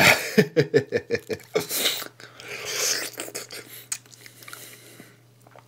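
Close-up wet eating sounds of mango flesh being gnawed and sucked off the large seed: a quick run of smacking mouth noises in the first second and a half, then slurping that fades quieter toward the end.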